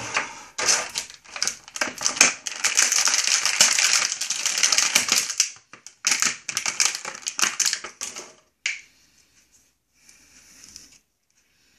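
Thin clear plastic blister packaging crackling and crinkling as it is handled and an action figure is pulled out of it: dense runs of sharp crackles that stop about eight and a half seconds in, with a faint rustle a little later.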